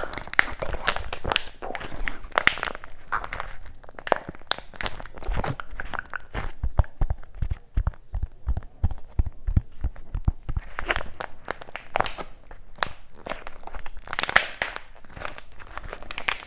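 Close-miked crackling, crinkling and tearing from packaging being handled and opened, in dense irregular clicks with a few soft low thumps midway.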